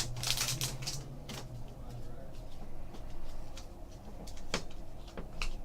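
Trading cards being handled and sorted by hand: soft scattered clicks and slides of card stock, with a few sharper ticks about halfway through and near the end.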